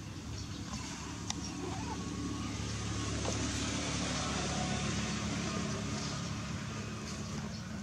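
An engine running steadily, its hum swelling louder through the middle and easing off toward the end.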